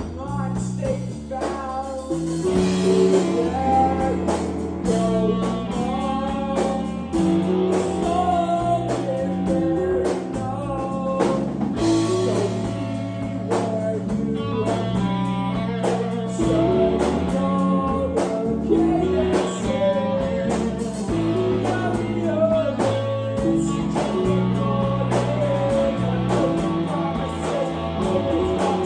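Live band jamming in a blues style: guitar and drum kit with singing.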